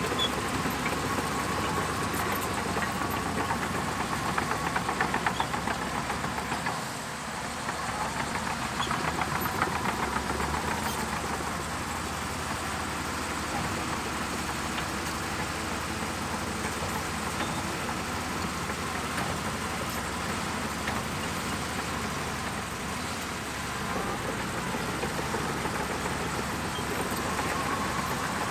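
Shantui DH17C2 crawler bulldozer's diesel engine running steadily as it works, with a faint whine that rises and falls now and then. The engine note dips briefly about seven seconds in and again later, then builds up again near the end.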